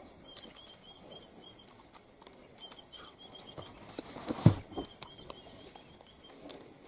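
Outdoor wildlife ambience: a high chirping repeated about five times a second in three runs of several chirps, with scattered sharp clicks and rustles and one brief, louder low sound about four and a half seconds in.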